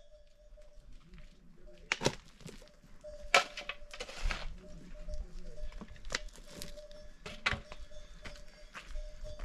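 A steel shovel digging into dry soil and tipping it into a metal wheelbarrow: a string of sharp scrapes and thuds about a second apart, one longer gritty scrape a little past the middle.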